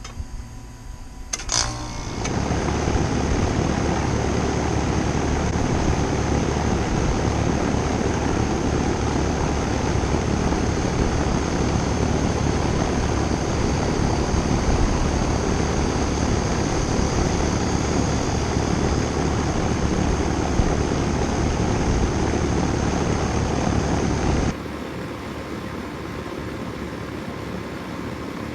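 Rheem RAKA-037JAZ outdoor AC condensing unit running steadily, its condenser fan and compressor whirring and humming, now working on replacement run capacitors after the failed start/run capacitor. It comes in with a click about two seconds in and cuts off suddenly near the end, giving way to quieter music.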